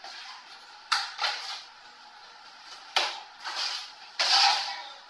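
Several sharp knocks and clattering scrapes from dining-table parts and their cardboard packaging being handled during assembly, with a longer clatter near the end.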